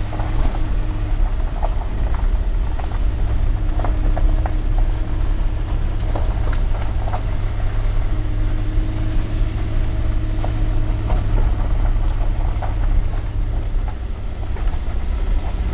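A truck driving on a country road, heard from inside the cab: a steady low rumble of engine and road noise, with a faint hum and a few light clicks and rattles.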